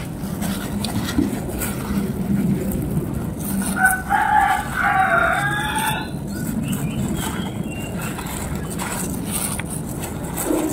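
A rooster crowing once, one call of about two seconds that starts about four seconds in, over low steady background noise.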